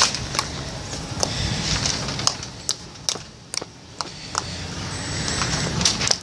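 Slime being poked and handled, giving irregular small clicks and pops over a low rustle.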